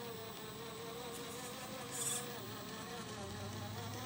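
Traxxas TRX-4 RC crawler's electric motor and geartrain whining as the truck drives forward slowly, the pitch wavering slightly with speed. A brief hiss about halfway through.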